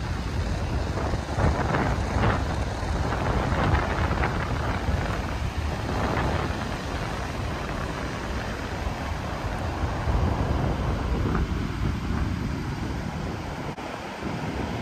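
Wind rumbling across the microphone over the steady wash of ocean surf breaking on a beach.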